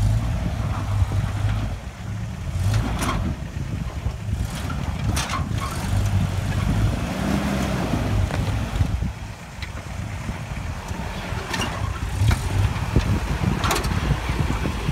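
Lifted first-generation Toyota 4Runner rock crawler's engine running at low revs as the truck crawls over boulders, with a brief rise in revs around the middle. A few short, sharp knocks are heard along the way.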